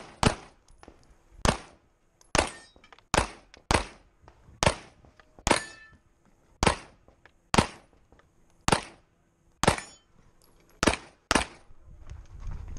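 Pistol shots: about fifteen sharp reports, mostly about a second apart with a few quick pairs, each trailing off in a short echo.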